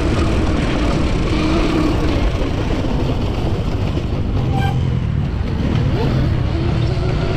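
Electric dirt bike's QS138 brushless motor with built-in gear reduction whining under a heavy, steady rush of noise while riding. The whine wavers in pitch with the throttle, fades in the middle and comes back near the end.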